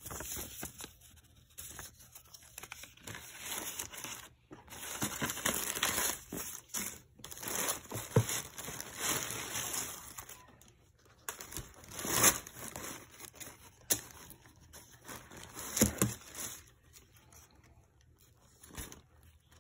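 Tissue paper rustling and crinkling as it is handled and pulled back from a shoe box, in irregular bursts with a few sharper, louder crackles.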